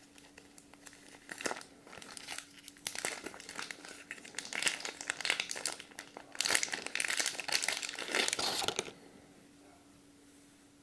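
Cellophane sleeve crinkling and crackling in irregular bursts as it is worked loose and peeled off a cigar, loudest in the last few seconds before it stops.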